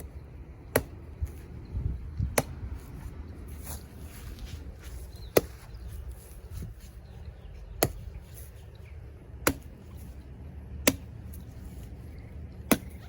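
Chopping blows into the trunk and base of a dead papaya tree: seven sharp strikes at an uneven pace, roughly one every two seconds.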